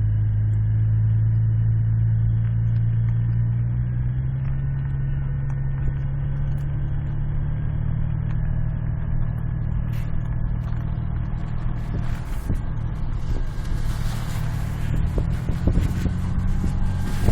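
A motor vehicle's engine running with a steady low drone that rises a little in pitch over the first few seconds. Irregular knocks and rattles join in during the last few seconds.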